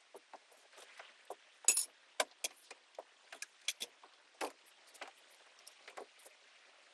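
Irregular sharp cracks, snaps and clinks, the loudest about two seconds in, as rotted stringer wood, fiberglass and foam are broken and pulled out of a boat hull.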